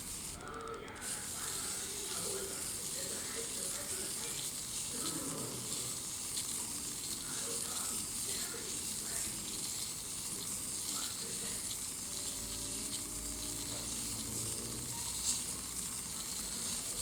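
Fine P1500-grit sandpaper rubbing over a CPU's die, a steady, even hiss.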